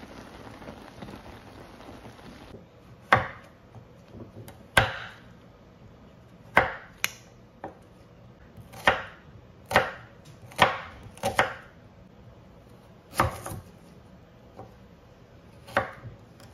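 A steady hiss of shrimp cooking in a steaming pan, cut off after about two seconds. Then a kitchen knife chops carrots and onion on a wooden cutting board: about ten sharp knocks of the blade on the board, unevenly spaced a second or two apart.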